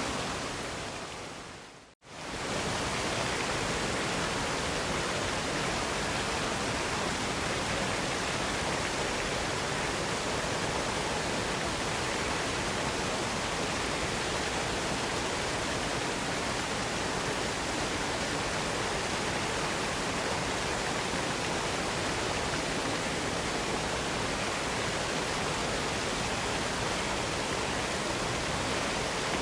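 Waterfall: a steady, dense rush of falling water. About two seconds in it fades down to silence and quickly comes back, as at the seam of a looped recording.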